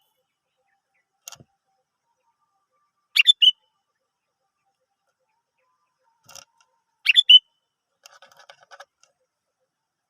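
Sooty-headed bulbul (kutilang) calling: two short, bubbly phrases of a few quick notes, about four seconds apart, with softer chattering near the end.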